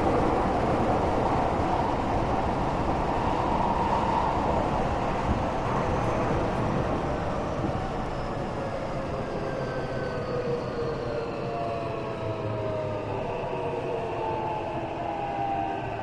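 Tokyo Metro 8000 series electric train running, heard from inside a passenger car as a steady rail rumble. From about ten seconds in, faint motor whines slide down in pitch as the train slows.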